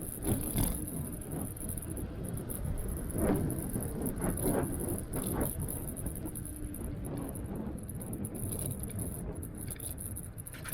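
Electric scooter on the move: wind and road noise rumbling unevenly, with rattling from the scooter and a steady high hiss.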